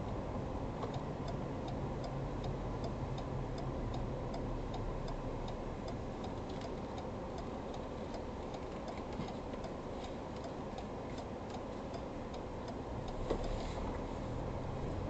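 Turn-signal indicator ticking steadily, about three ticks a second, inside a Ford Ranger Raptor's cabin over low road and engine rumble, signalling a turn. The ticking stops near the end, where a single thump sounds.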